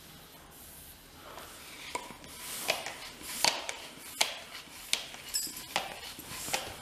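Sharp, irregular clicks and taps of a bicycle pump head being handled and fitted onto a long-stemmed bicycle tyre valve, starting about a second and a half in.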